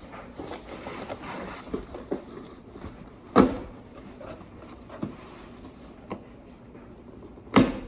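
A package being handled and unpacked: light rustling with several sharp knocks, two loud ones about three and a half seconds in and near the end.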